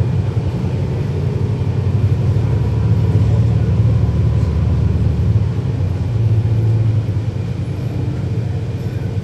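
A NABI 40-SFW transit bus with a Cummins ISL9 diesel engine, heard from on board while running: a steady, deep rumble. The lowest part of the rumble drops away about five and a half seconds in.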